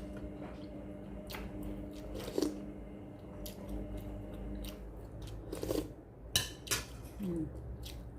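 Person chewing food close to the microphone, with a few sharp clicks and knocks scattered through, the loudest two a little past the middle.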